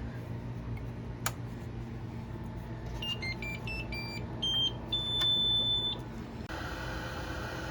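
3D printer running with a steady hum. About three seconds in comes a run of short high tones that step between pitches, the last held for about a second. Near the end the sound changes to a louder, even hiss.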